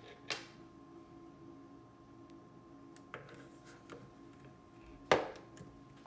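A few sharp clicks and taps of small tools and parts being handled during a phone screen repair, the loudest just after five seconds in, over a faint steady electrical hum.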